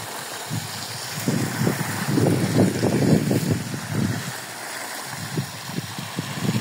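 Water gushing from the open end of an irrigation hose into a flooded furrow, a steady rushing hiss, with irregular gusts of wind rumbling on the microphone.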